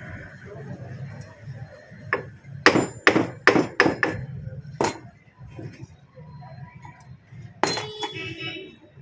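Hammer blows on the top end of a submersible pump's metal casing: about seven sharp strikes between two and five seconds in, then one more strike near the end.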